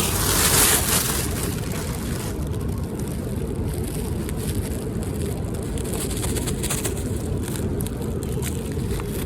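Steady low rumble of outdoor background noise, with a brighter hiss over the first couple of seconds.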